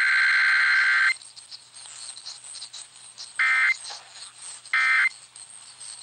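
Emergency Alert System digital data bursts received over AM broadcast radio: a loud, high-pitched warbling burst that ends about a second in, then three short bursts at even spacing, with AM static hissing between them.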